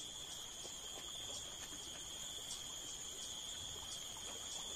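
Steady high-pitched insect trilling, unbroken and unchanging, over faint outdoor background hiss.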